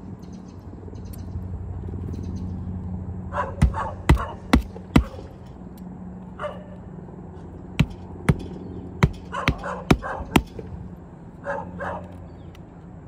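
Claw hammer driving roofing nails through asphalt shingles: about four quick blows, a pause, then about six more, nailing a shingle back down. A dog barks in short bursts between the blows.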